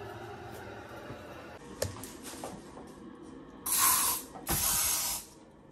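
Disinfectant spray bottle hissing out two bursts of mist about four seconds in, the second slightly longer, with a couple of faint clicks before them.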